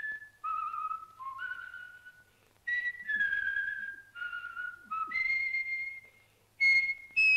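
A person whistling a slow melody of separate held notes, some sliding slightly into pitch, in short phrases with brief pauses between them; the last notes are the loudest.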